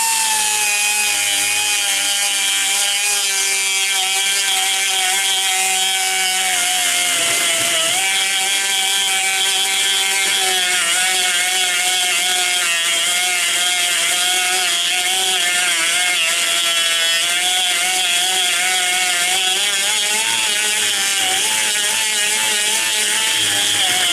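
Die grinder running with a high, steady whine as it cuts into a steel chainsaw bar to widen the bar-stud slot, the pitch dipping and wavering as the burr bites, with a clear dip about seven seconds in.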